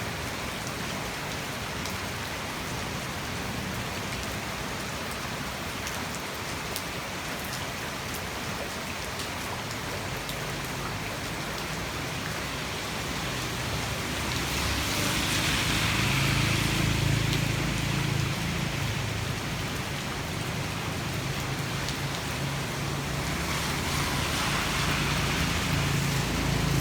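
Heavy tropical rain falling steadily as an even hiss. About halfway through, a low hum and a louder hiss swell up, ease off, and swell again near the end.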